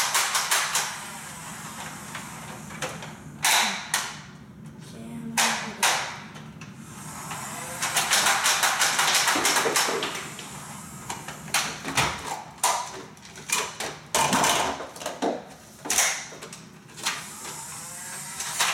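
Nerf Hail-Fire motorized blaster firing foam darts in rapid bursts, a dense clatter of clicks with short pauses between bursts. Darts land on the hard floor and the magazine mechanism clicks.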